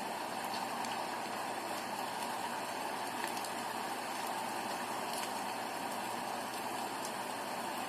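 Steady rain: an even hiss of falling rain with faint, scattered drop ticks.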